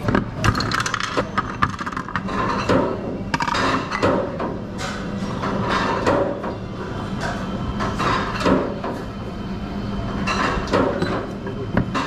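A glass beer bottle and drinking glass being handled with repeated clinks and knocks, and bottled beer poured into the glass, over steady restaurant background hum.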